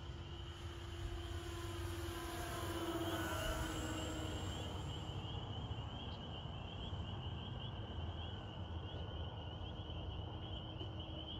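Twin electric motors and propellers of a radio-controlled B-25 Mitchell model whining as it flies past, swelling to their loudest about three seconds in, then fading. A steady insect chirring runs underneath.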